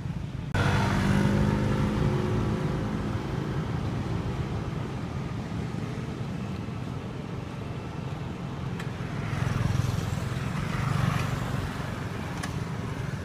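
A motor vehicle's engine passing on the adjacent road. It is loud from about half a second in, holds a steady droning pitch, and swells again near the end as it goes by.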